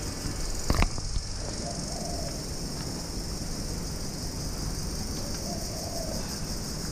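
Outdoor ambience with a steady high hiss, a sharp knock about a second in, and two faint distant bird calls.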